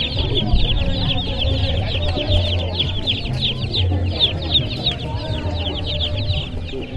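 Dozens of baby chicks and ducklings peeping together in a dense, continuous chorus of rapid, high, falling peeps that fades near the end.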